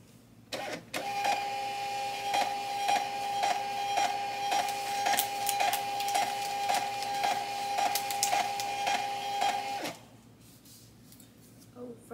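Thermal label printer printing a run of sticker labels: a steady motor whine with a tick about twice a second, starting about a second in and cutting off suddenly near the end.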